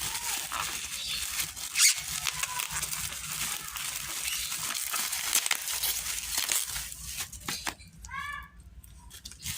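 Plastic packaging crinkling and rustling as it is handled and torn open, with a louder crackle about two seconds in. Near the end, a short high-pitched call rises and falls.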